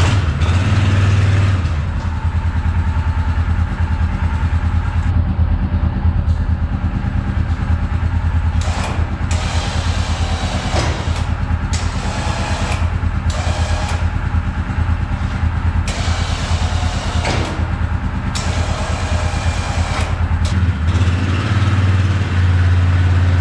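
Yamaha Grizzly 450 ATV's single-cylinder four-stroke engine running at a steady idle, with a few brief clunks through the middle. It grows louder near the end as the machine is ridden off.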